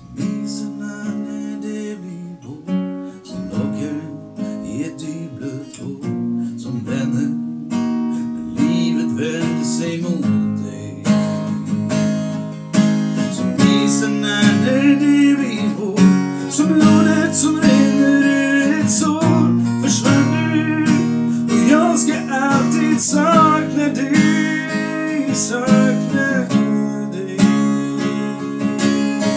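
Steel-string acoustic guitar with a capo being strummed in chords, starting abruptly at the beginning. After about nine seconds a man's voice sings over it.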